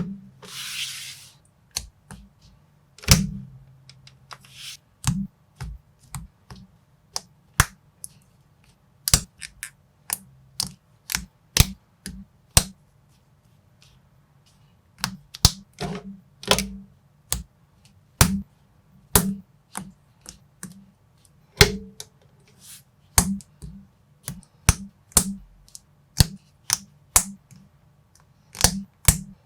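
Kbox Lego-compatible plastic bricks being handled and pressed together: irregular sharp clicks and snaps, sometimes several a second, with a brief hissing rustle just after the start and a short lull around the middle.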